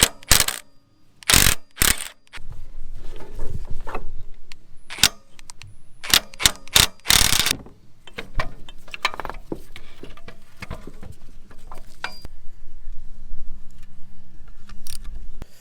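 Hand tools working on a pickup's alternator mounting: a ratchet wrench clicking and a series of sharp metal clanks as the alternator bolts are undone and the alternator is pulled off the bracket.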